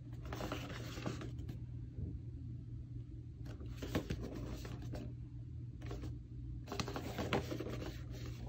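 A cardboard product box being handled and turned over in the hands, its surfaces rubbing and scraping against the fingers in several short bursts of rustling, with a couple of light knocks. A steady low hum sits underneath.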